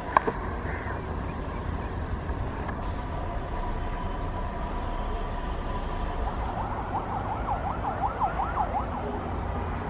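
A siren-like electronic warble: a steady high tone, then, about six seconds in, fast rising-and-falling yelps, about four a second, for roughly two and a half seconds. A steady low rumble runs underneath, and there is a sharp click at the very start.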